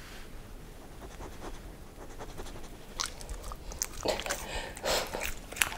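Samoyed sniffing at a cheese string, then from about three seconds in biting and chewing it, with a run of sharp wet mouth clicks.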